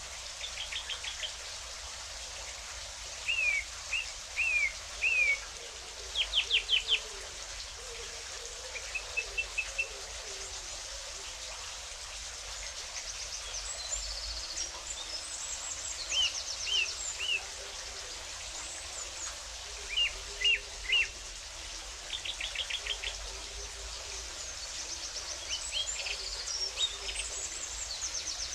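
Wild birds calling over a steady hiss of running water: repeated groups of three short downward-sliding chirps, quick stuttering trills, and thin high twittering, the chirp groups the loudest.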